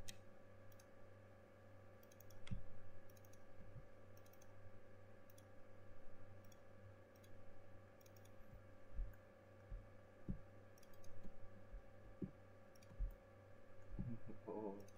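Scattered clicks of a computer mouse, a few a second at times with pauses between, over a steady low electrical hum.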